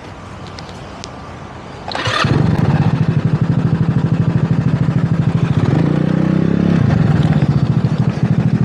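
Wolf Rugby 150cc scooter's single-cylinder engine starting about two seconds in, then running at a steady pulsing idle. It revs briefly around six seconds before settling back.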